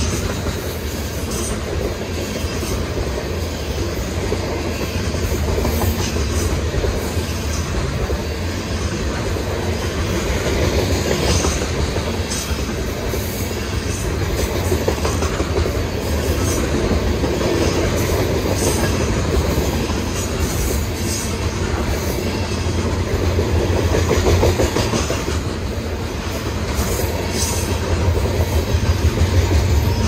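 Freight train of grain cars rolling past at track side: a steady rumble of steel wheels on rail, with scattered clacks and short squeals from the wheels.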